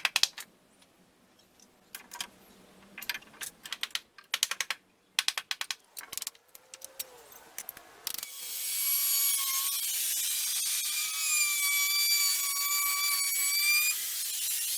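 Scattered sharp clicks and taps, then about eight seconds in a high-speed power tool starts up and runs with a steady high-pitched whine.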